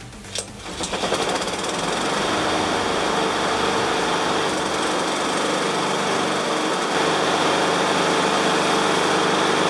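Honda push mower's single-cylinder engine pull-started, catching within about a second and then running steadily at speed on a new, clean air filter. It gets a little louder about seven seconds in.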